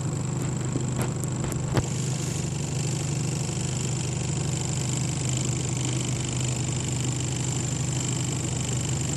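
A motor idling with a steady low hum. There are a few sharp clicks in the first two seconds and a faint, steady high-pitched whine throughout.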